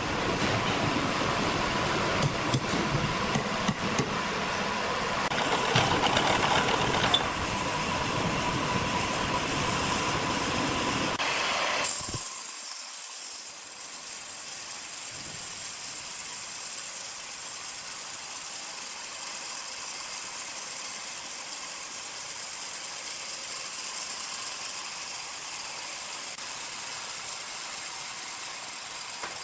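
Sawmill machinery running with rattling and a steady whine, then a sudden change about twelve seconds in to a steady high-pitched hiss with little low rumble.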